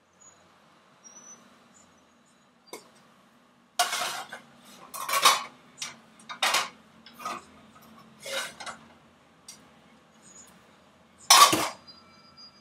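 Metal pots and pans clattering on a gas hob as they are handled, a run of knocks and scrapes followed by one louder clank near the end. A faint steady low hum lies underneath.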